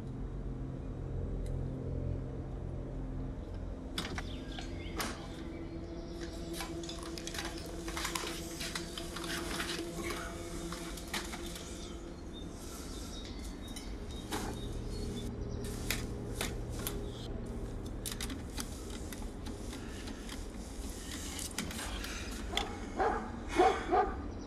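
Handling noises in a car's front seat: clothing rustling with small clicks and knocks, over a low steady hum. A few short, louder sounds come near the end.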